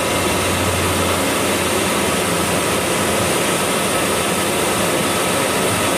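EZ Path CNC lathe running, its spindle turning a metal disc while a turning tool takes a facing cut: a steady machine whir with cutting noise. A low hum is strong for about the first second and then drops back.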